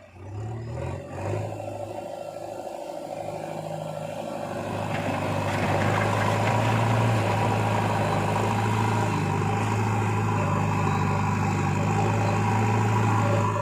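Heavy diesel engine running, wavering in the first couple of seconds, then revving up about five seconds in and holding steady at higher revs.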